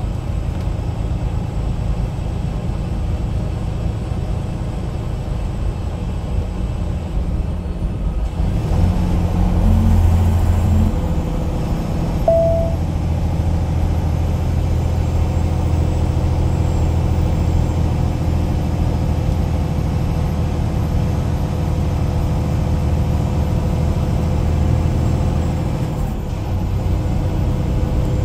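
Vehicle engine and road noise heard from inside the cabin while driving, a steady low rumble that swells for a couple of seconds about nine seconds in. A brief high-pitched beep sounds about twelve seconds in.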